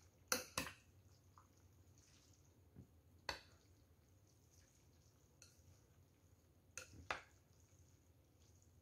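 Metal spoon and wooden chopsticks knocking against a large bowl of noodles: a few sharp clinks, two close together just after the start, one near the middle and two more near the end, with near silence between.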